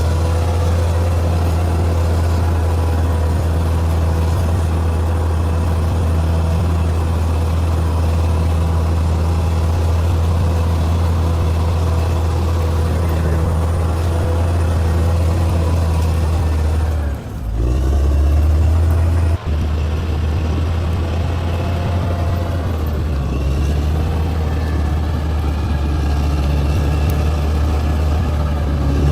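Diesel engine of a heavy earthmoving machine running steadily with a deep, even drone, with a brief break and change about two-thirds of the way through.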